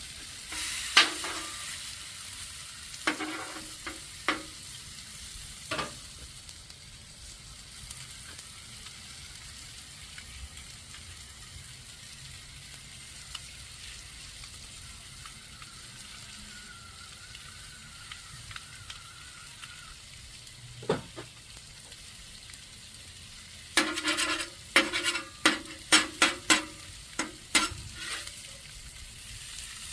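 Potatoes frying with a steady sizzle. A utensil scrapes and clacks against the cooking surface a few times, then in a quick flurry near the end.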